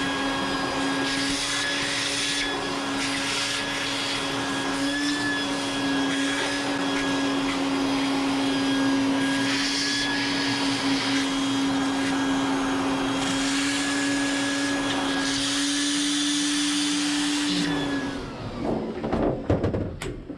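Shop vacuum running steadily, sucking debris out from around a boat engine's intake manifold, with surges of rushing air as the nozzle moves. Near the end the motor is switched off and winds down with a falling pitch, followed by a few knocks.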